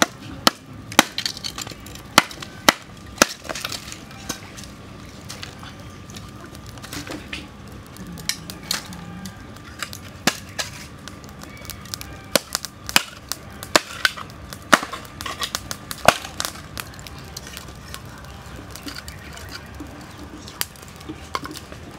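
Wood campfire crackling, with sharp, irregular pops and snaps of burning sticks.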